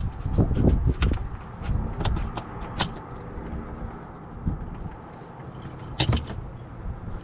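Handling noise from a water hose being worked out of an RV wall: rubbing and rustling, with scattered sharp clicks and knocks. The loudest knock comes about six seconds in.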